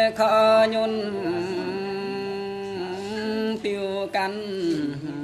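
A man singing a Dao folk song (hát Dao), unaccompanied, in long held notes that slide from pitch to pitch, dropping lower near the end.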